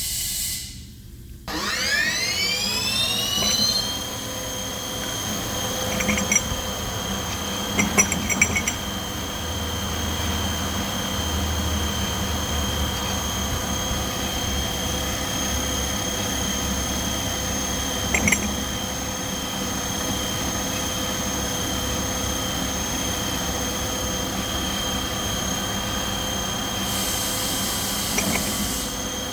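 Haas TL-2 CNC lathe spindle spinning up, with a whine rising in pitch for about two seconds and then running steadily at speed as a high, even whine. A few short clanks come at several points during the run.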